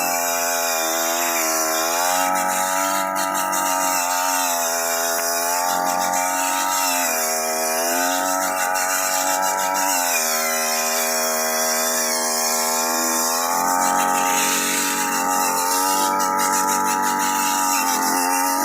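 Two-stroke brush-cutter engine, converted to cut rice, running at high speed. Its pitch dips and recovers every few seconds as the load changes.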